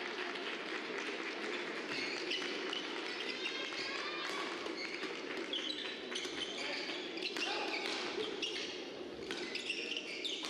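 Badminton doubles rally: sharp racket hits on the shuttlecock and repeated short squeaks of court shoes on the court mat, over the steady murmur of the hall.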